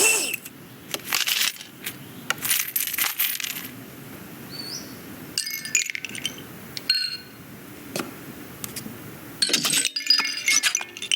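Film sound effects of small hard objects: a run of light clicks, clinks and clattering rattles in several clusters, with a short rising chirp about four and a half seconds in.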